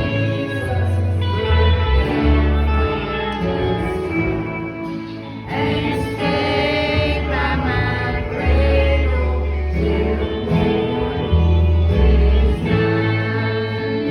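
Choir singing gospel-style music over instrumental accompaniment with held bass notes.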